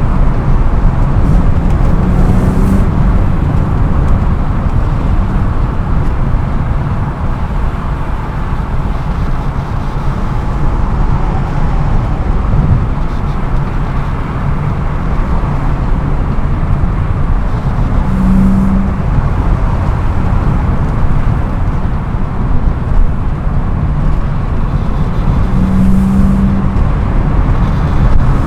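BMW E36 M3 on the move, its engine and road noise running steadily as heard from inside the car.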